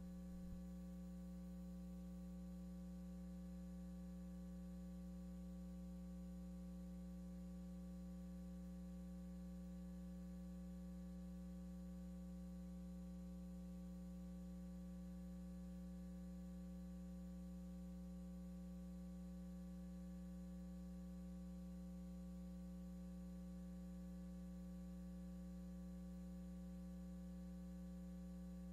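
Steady electrical hum, a low buzz that holds the same pitch and level with no change.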